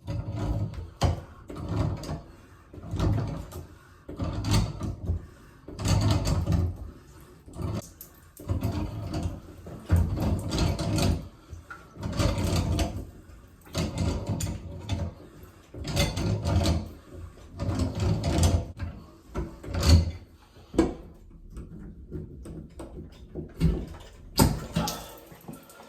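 Cartridge puller being twisted by its back nut to draw a Moen shower cartridge out of the valve body: metal scraping and clunking in repeated strokes roughly every second or two.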